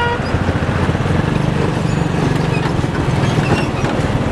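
Moving vehicle heard from on board: a steady low road and engine rumble, with a brief beep at the very start.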